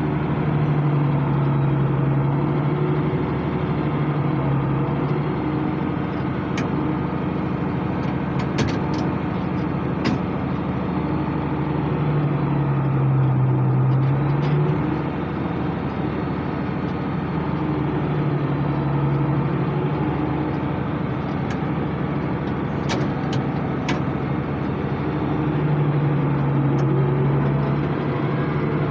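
International 886 tractor's diesel engine running steadily while pulling a hay baler. Its low hum swells and fades every few seconds, with a few sharp clicks now and then.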